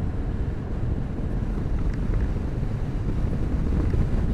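Wind rushing over the rider's microphone on a moving motorcycle, mixed with the bike's running noise at a steady, unhurried speed; a low, even rumble with no sudden events.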